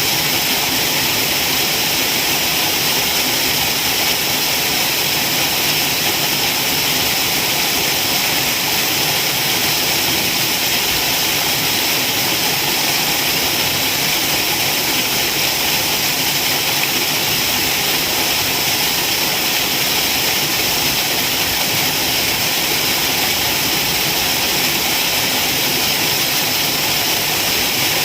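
Waterfall: water pouring and splashing in a steady, unbroken rush with a strong hiss.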